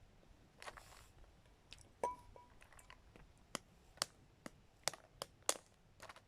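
Scattered sharp clicks and taps from balut eggs and their shells being handled while eating, with a louder clink about two seconds in that rings briefly.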